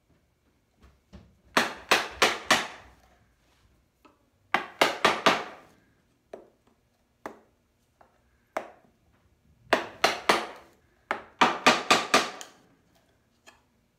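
A chisel being struck repeatedly to chop a mortise about an inch deep into a wooden leg. The blows come in bursts of three to five, about three a second, with single lighter taps between the bursts.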